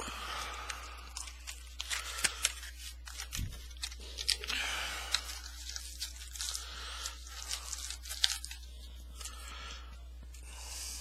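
Packaging of a Topps Chrome football card box being torn open and handled, with intermittent tearing and crinkling rustles and many small sharp clicks.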